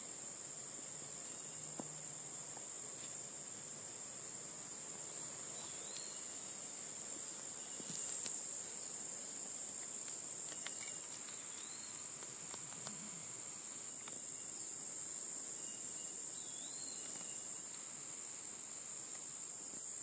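Steady, high-pitched chorus of calling insects, unbroken throughout, with a few faint short chirps over it.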